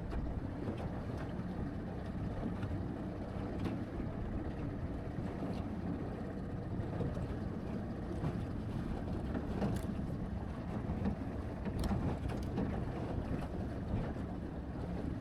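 Small fishing boat under way at trolling speed: its motor running steadily under the rush of water and wind on the microphone.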